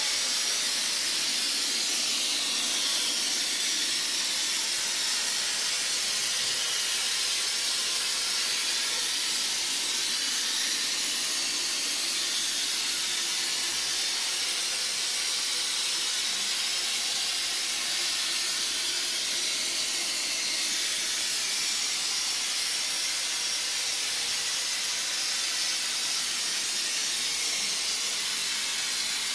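Aerosol can of spray-on gotelé textured wall coating hissing in one long, steady spray through its cannula nozzle.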